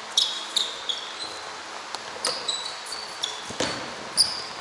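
Basketball sneakers squeaking on a hardwood gym floor in many short, high chirps, with a basketball bouncing twice, sharply, about two and three and a half seconds in.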